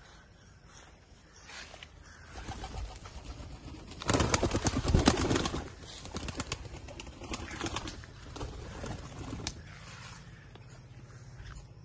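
Domestic pigeons cooing, with a loud flurry of rapid wing flaps about four seconds in and scattered flapping after it.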